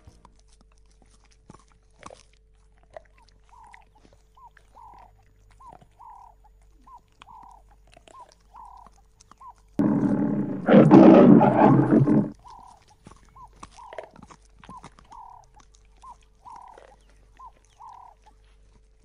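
Lions tearing and chewing at a Cape buffalo carcass, with scattered wet clicks and crunches. About ten seconds in, a lion growls loudly for about two and a half seconds. A bird calls in the background throughout, a short note about twice a second.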